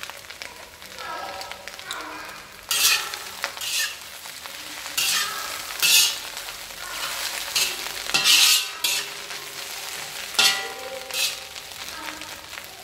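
Food stir-frying in a hot pan, sizzling as it is stirred, with about seven short loud bursts of sizzle as it is turned.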